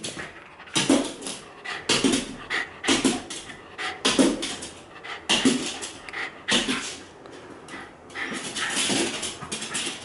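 Terrier giving short, sharp yaps about once a second, with whining in the last few seconds, as it jumps about in excited frustration.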